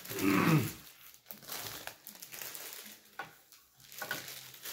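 Clear plastic bag crinkling and rustling as it is pulled off a model and handled, loudest in the first second, then scattered softer crackles.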